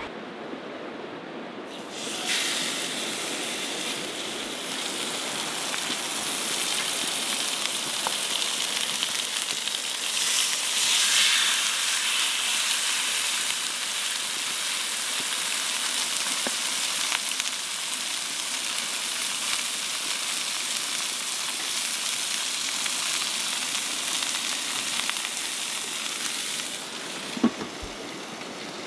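Blackened salmon fillets sizzling loudly in a cast iron skillet heated to about 500 degrees. The sizzle starts suddenly about two seconds in, after a softer rush of river water, and stops near the end, with a single knock just after.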